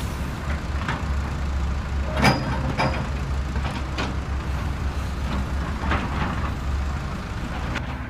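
Heavy diesel engine of a tracked hydraulic excavator running steadily, with several sharp knocks and clatters of the bucket and rock, the loudest a little over two seconds in.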